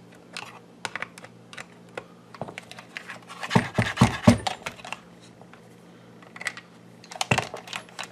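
Small plastic clicks and taps as twist-lock bulb sockets are handled and pushed into the back of a car climate control panel, with a cluster of louder knocks about halfway through and another near the end.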